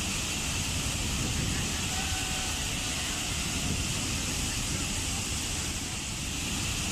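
Waterfall: a steady, unbroken rush of falling water, with a low rumble beneath a bright hiss.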